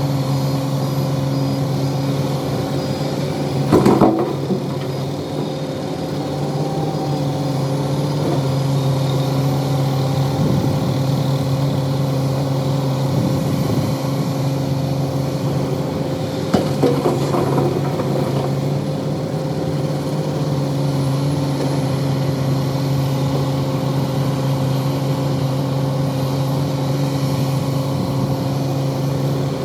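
Heavy diesel engine running steadily, with short bursts of clanking about four seconds in and again around seventeen seconds.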